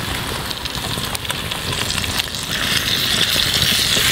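Food frying in a stainless steel mess-kit pan over a campfire: a steady sizzle that grows louder about two and a half seconds in, with a few faint clicks.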